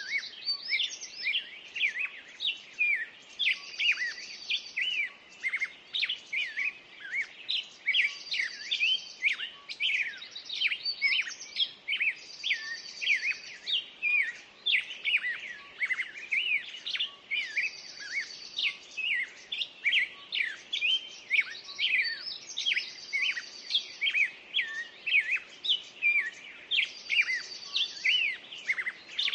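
A chorus of songbirds singing and chirping, dense quick chirps and sweeping notes overlapping throughout. A high buzzy trill recurs about every four seconds.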